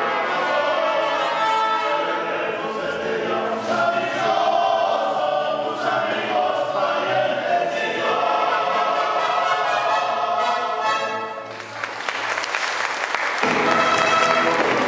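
Voices singing together with mariachi accompaniment. Near the end the song gives way to a few seconds of applause, then trumpets and violins strike up.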